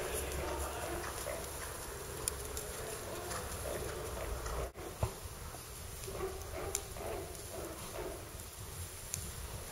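A ridden Hanoverian horse moving over arena sand: soft hoofbeats and the horse's breathing, with a sudden brief drop-out about halfway through and a few sharp clicks.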